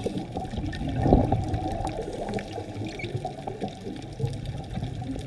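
Muffled underwater sound of bubbles rising from a scuba diver's exhalation, a steady rushing and crackling with a louder surge of bubbles about a second in.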